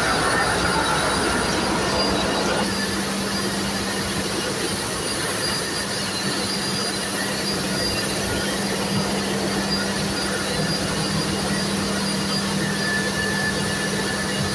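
Steady, loud machinery noise of a ship's engine room, with a constant low hum under an even mechanical din.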